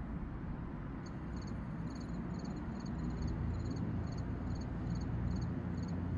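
Crickets chirping in a fast, even rhythm, starting about a second in, over a steady low background rumble.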